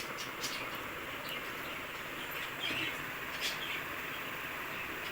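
A few faint bird chirps over a steady background hiss.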